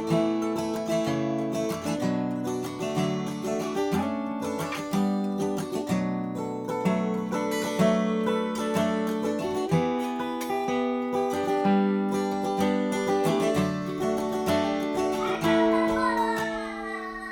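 Martin D-1 Authentic 1931 12-fret steel-string acoustic guitar played with a capo: a run of picked notes and strummed chords, ending on a chord left to ring.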